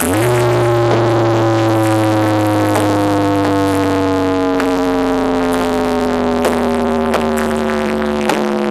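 Large 'horeg' sound system playing a sustained electronic tone that slowly falls in pitch over deep steady bass; the bass cuts off near the end.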